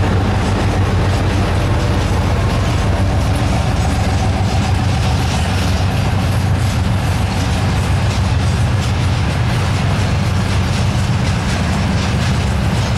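A freight train's loaded wagons, covered hoppers and boxcars, rolling past close by. It is a steady, loud low rumble of steel wheels on the rails, with wheel clatter over the rail joints.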